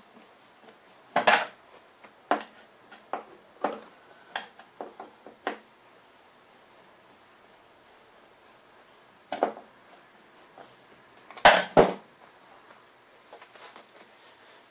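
Scattered sharp clicks and knocks of a screwdriver and hard blower parts being handled on an aluminium workbench while the fasteners holding a Stihl backpack blower's back pan are taken out. A quick run of clicks comes in the first few seconds, and two louder knocks in quick succession about three-quarters of the way through.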